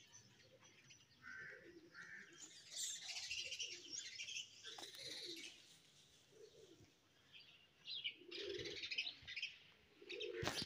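Faint chirping of small birds, with the low cooing of pigeons now and then.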